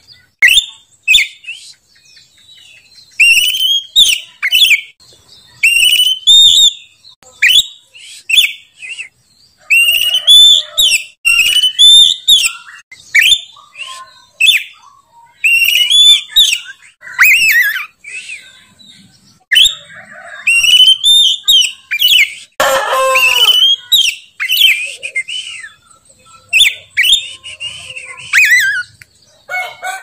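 Caged oriental magpie-robin (kacer) singing without a break: loud, clear whistled phrases one after another with short pauses. About two-thirds of the way through there is one brief, lower and harsher call.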